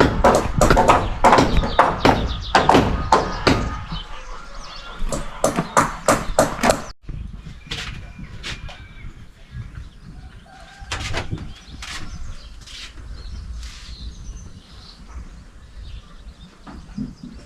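Hammering on wooden roof timbers: rapid, irregular, loud knocks that stop abruptly about seven seconds in. After that come a few scattered knocks and faint bird chirps.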